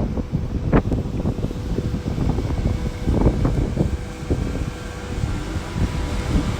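Wind buffeting the microphone: an uneven low rumble that swells and drops, with a faint steady hum underneath.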